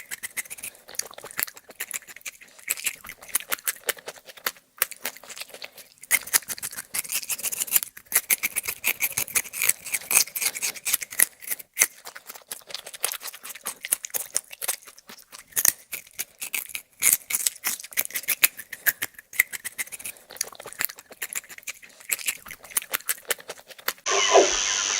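Rapid, irregular clicking and crackling. Near the end it gives way suddenly to a steady, louder rushing noise.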